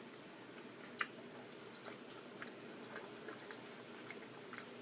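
A person chewing food quietly with the mouth closed: faint, wet mouth clicks here and there, the sharpest about a second in, over a low steady hiss.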